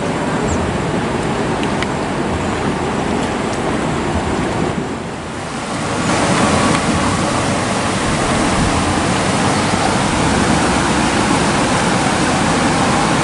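River water rushing over rocks and shallow rapids, a steady loud rush that dips briefly about five seconds in and comes back a little brighter.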